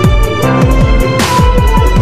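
Loud electronic dance music: deep kick drums several times a second under held synth tones, with a bright crash a little past a second in.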